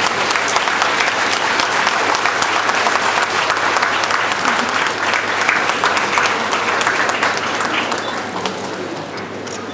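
Audience applauding, a dense steady clapping that dies away over the last couple of seconds.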